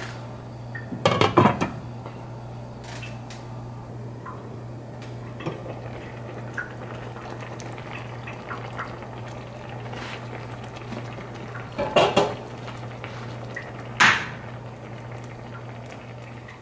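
Fish broth simmering in a stainless steel skillet over a steady low hum, with a glass pan lid clattering against the pan's rim: a cluster of clinks about a second in, and two more near the end.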